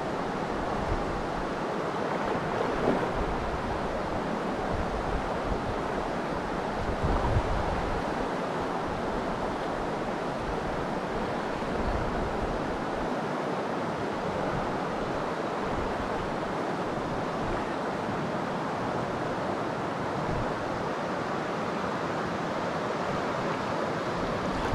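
Steady rushing of a clear mountain stream running over stones, with gusts of wind buffeting the microphone.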